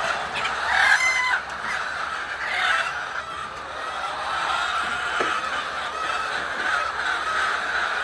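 A flock of hens clucking together in a steady, unbroken chorus of many overlapping calls, one call standing out louder about a second in.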